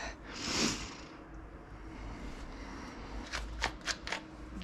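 Handling noise: a brief rustle about half a second in, then a quick run of four or five sharp clicks near the end, as of plastic items being picked up and set down.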